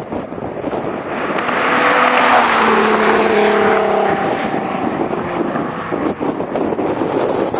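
2004 Nissan 350Z with a Spintech aftermarket exhaust driving past, its V6 exhaust note swelling to a peak about two seconds in and then easing off as it moves away. Wind buffets the microphone throughout.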